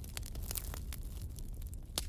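Campfire crackling: irregular sharp pops and snaps of burning wood over a low, steady rumble of the flames.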